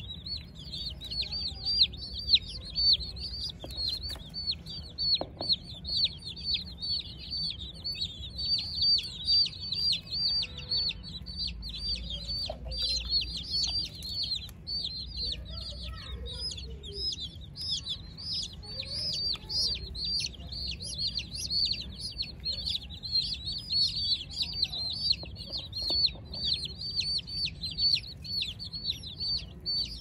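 A flock of baby chicks peeping nonstop, many short, high, downward-sliding peeps overlapping several times a second.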